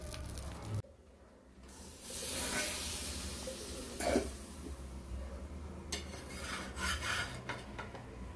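A metal utensil scraping and rubbing against a clay pan. About two seconds in there is a stretch of hiss that fades away, and later a few light knocks.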